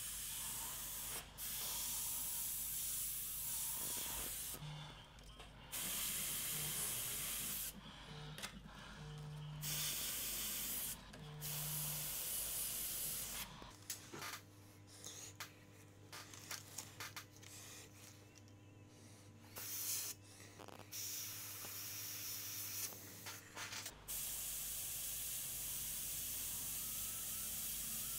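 Gravity-feed airbrush spraying paint: a hiss of air that starts and stops many times in short bursts.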